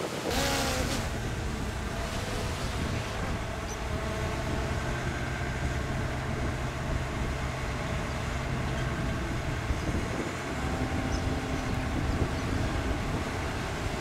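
Dump truck's diesel engine running steadily as the hydraulic hoist tips the loaded bed, with a short burst of hiss right at the start.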